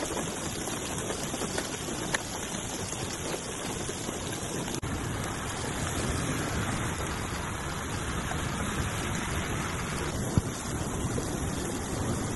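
Heavy rain pouring onto standing water, giving way to muddy floodwater rushing past, a steady dense hiss that grows somewhat louder about halfway through, with a couple of small knocks.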